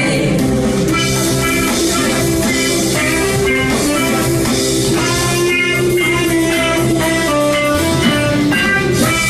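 Live band playing an instrumental passage with no singing: electric guitar over bass and drum kit, with cymbals ringing throughout.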